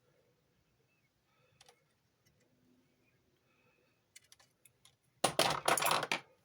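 Hand work on a wiring job: a few light clicks, then a quick run of sharper clicks, followed by about a second of loud rustling and scraping.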